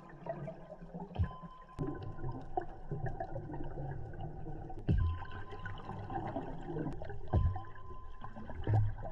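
Underwater sound of scuba divers breathing through their regulators: a rushing, gurgling bubble noise from exhaled air, broken by a few sudden low thumps, with a faint steady high whine coming and going.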